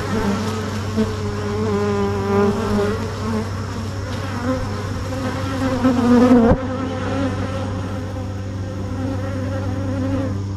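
Many honey bees buzzing around a hive: a steady low hum with the wavering pitches of single bees flying close past. There is a brief sharp click about six and a half seconds in.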